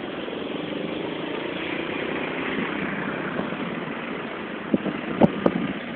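Steady vehicle engine and road noise, with a few sharp knocks a little before the end.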